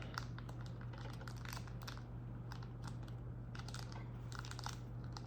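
Foil wrapper of a Pokémon card booster pack crinkling and tearing as it is opened, with the light clicks of cards being handled; many small irregular crackles over a steady low hum.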